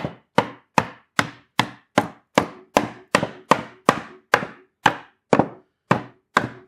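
Rubber mallet tapping the dovetail joints of a cedar hive box into place, with evenly spaced strikes about two and a half a second.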